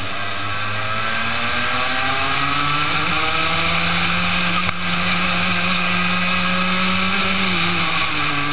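Daytona Max racing kart engine heard from on board under full throttle: its pitch climbs over the first three seconds or so, holds at high revs, then drops near the end as the throttle is lifted. One brief click about halfway through.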